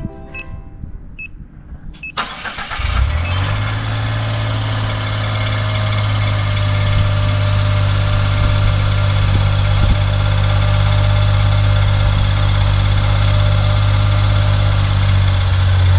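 Suzuki Every Wagon's 660 cc three-cylinder engine starting about two seconds in, then settling into a steady idle. The owner is chasing a persistent abnormal noise in this engine.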